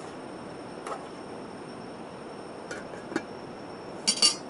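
Metal camping cookware being handled: a few light clinks and knocks on the pot, then a short metallic clatter near the end, over a steady hiss.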